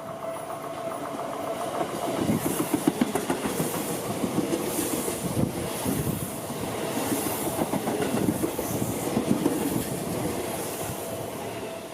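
Electric train passing through a level crossing, its wheels clattering over the rail joints. The level crossing's warning bell rings steadily at first and is drowned out about two seconds in, as the train noise grows loud. The train noise eases near the end.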